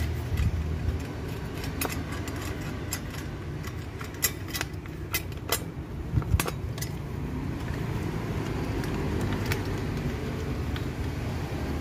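Scattered light metallic clicks and clinks as a chain saw bar, its chain and bolts are handled and fitted onto a battery angle grinder's chain saw attachment, over a steady low rumble.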